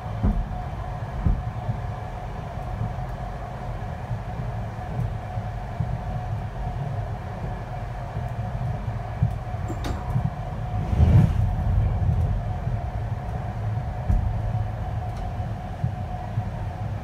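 Express passenger train running at speed, heard from inside a coach: a steady low rumble of wheels on the track with a faint steady tone, a few short knocks, and a louder surge lasting about a second near the middle.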